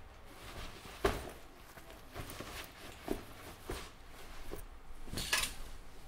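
Soft, scattered knocks and handling noises of a hiking boot being taken off and set down by a wooden bunk. The sharpest knock comes about a second in, and there is a brief rustle of clothing or bedding near the end.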